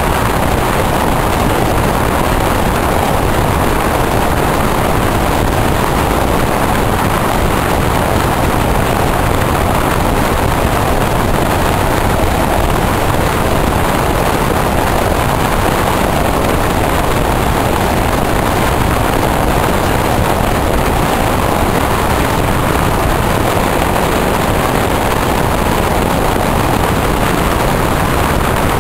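Steady rush of wind and running noise from a passenger train travelling at speed, heard at an open window.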